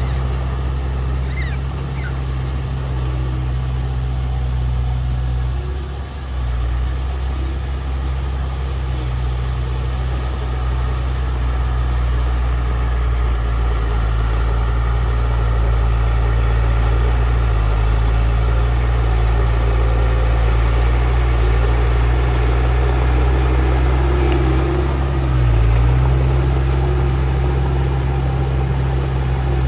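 Diesel engine of heavy earthmoving machinery running steadily under a low, even drone, with a brief dip about six seconds in and a short change in pitch about twenty-five seconds in.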